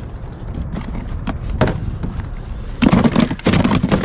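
A sheepshead thrashing inside a plastic cooler: a few scattered knocks, then a fast run of knocks and thuds starting about three seconds in.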